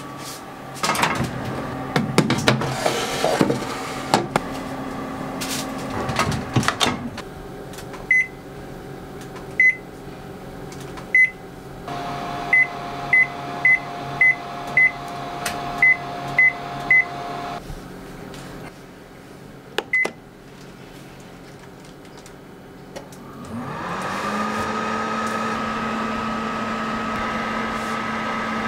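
Panasonic Bistro oven: clattering and knocking as the grill pan goes in, then about a dozen short beeps from its touch panel as the double-sided grill setting is keyed in. Near the end the oven starts up, a hum that rises and settles into a steady running drone.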